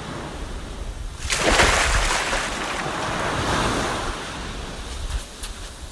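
Ocean wave sound effect: surf hiss that surges up about a second in as a wave breaks, then slowly washes out.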